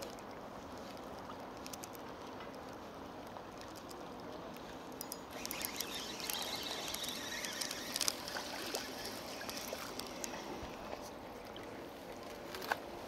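Gentle lapping of shallow water at a rocky shore. From about five seconds in comes a louder stretch of splashing, with scattered sharp clicks, as a small hooked fish is played on a light spinning rod and drawn ashore.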